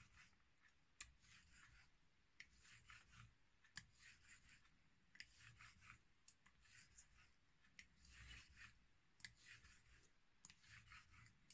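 Faint scraping strokes of a Dovo 98 straight razor blade pushed back and forth across a wet 4000-grit whetstone, about one or two strokes a second, unevenly spaced.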